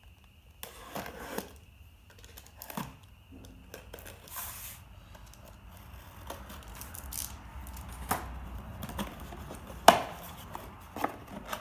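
Packaging of framing nails being cut and torn open by hand: irregular rustling, tearing and small clicks, with a sharp knock about ten seconds in.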